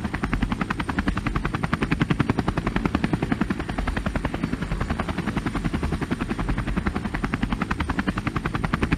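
T129 ATAK attack helicopter in flight, its rotor blades beating in a rapid, even pulse over a low engine rumble.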